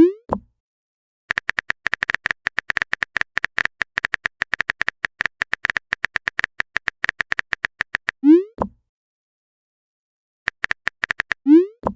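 Typing sound effect: runs of rapid keyboard-like clicks. Each run is followed by a short rising 'bloop' message-sent tone, three tones in all, and there is a silent gap of about two seconds near the end.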